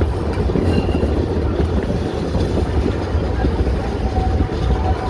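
Heritage narrow-gauge train running along the track, heard from aboard a carriage: a steady low rumble of wheels on the rails. A faint thin wheel squeal comes in near the end.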